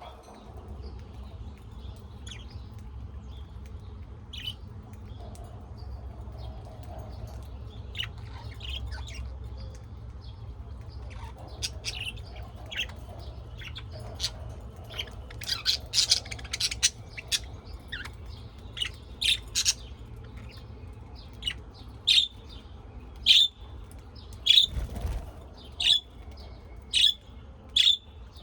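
Birds chirping: short, sharp calls, sparse at first, then louder and coming about once a second in the second half, with a quick flurry of calls about halfway through. A steady low hum runs underneath.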